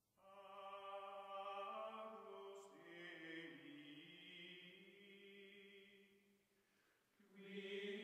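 Faint background music of sustained choir-like chanting in long held notes, shifting pitch about three seconds in, fading away around six seconds and starting again near the end.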